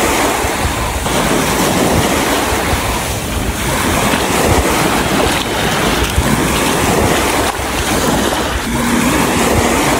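Loud, steady rushing wind buffeting the microphone, with a deep rumble underneath.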